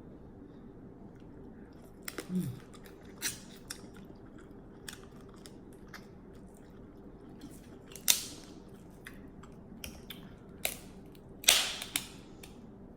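Close-up eating sounds of snow crab legs and seafood: irregular cracks and crunches of shell with chewing and smacking, two louder cracks about eight and eleven and a half seconds in.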